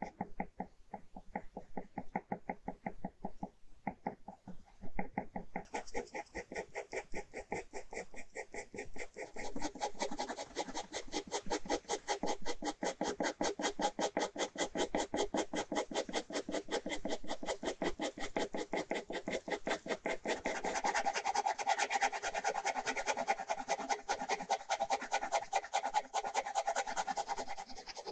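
Ballpoint pen hatching on paper: quick back-and-forth scratching strokes, several a second. The strokes are sparser over the first few seconds, then run steady and dense, growing louder about two-thirds of the way through.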